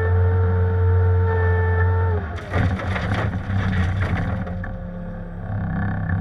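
Bobcat compact diesel machine running under load with a steady hydraulic whine that drops away about two seconds in, followed by a couple of seconds of loud scraping and clattering as a steel bucket works through loose shale; the engine then runs on more quietly.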